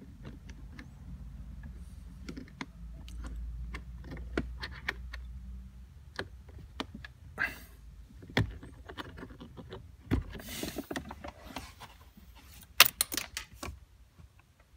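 Scattered clicks, knocks and rustling from hands and tools working around a car's plastic centre-console trim and carpeted floor, with a low hum under the first half and a cluster of sharp clicks near the end.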